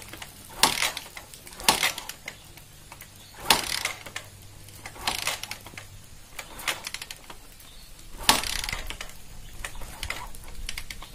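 Bajaj Discover 100's single-cylinder four-stroke engine being kick-started over and over: about six mechanical clattering kicks a second or two apart, the engine turning over without catching. The non-start comes from water left in the carburettor after years of standing.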